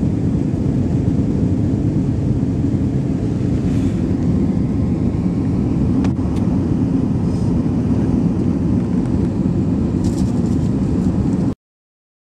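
Steady low rumble of an Airbus A319's engines and airflow heard inside the passenger cabin, with a few faint clicks. It cuts off suddenly about a second before the end.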